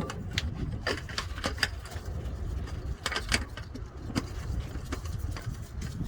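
Scattered light metallic clicks and taps of hand work under a vehicle during an oil change, with a part being threaded in by hand, over a steady low rumble.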